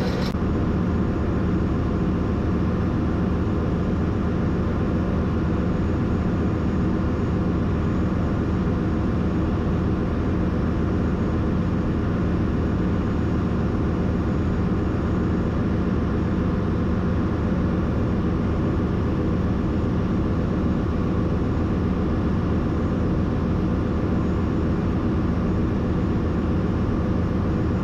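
Ship's engine-room machinery running: a loud, steady drone with a constant hum and no change throughout. The main engine is stopped with its piston out for overhaul, so the noise is from the room's other running machinery.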